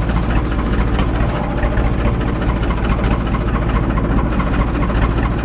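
Ford 3600 tractor's three-cylinder diesel engine running steadily.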